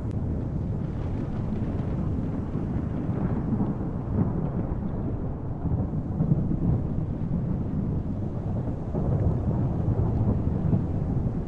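Airbus helicopter's rotors and turbine making a steady low rumble.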